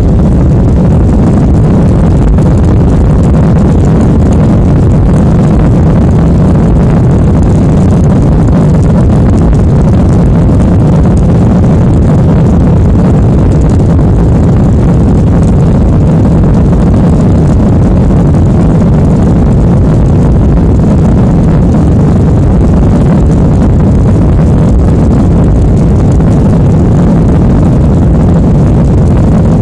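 Steady, loud low rumble of engines and airflow heard inside an airliner's passenger cabin in flight, even and unchanging throughout.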